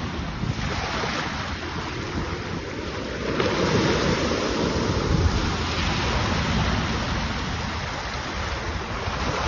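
Small waves breaking and washing up a sandy shore, the surf swelling louder a few seconds in and easing again, with wind rumbling on the microphone.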